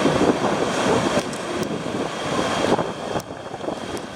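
Wind buffeting the microphone over the wash of surf breaking on the beach, easing about three seconds in.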